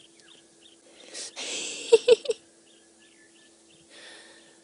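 Bush ambience: a high chirping call repeating about three times a second over a faint steady hum. About a second and a half in comes a brief breathy rustle ending in three quick squeaky notes, the loudest sound here.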